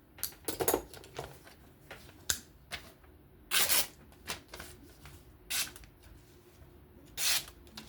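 A freshly sharpened folding knife slicing through paper in about five short swishes, roughly a second and a half apart, with a few lighter ticks in between.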